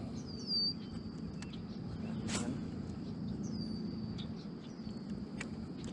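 A bird calling: a high whistle that drops and then holds for a moment, repeated about three times, over a steady low hum.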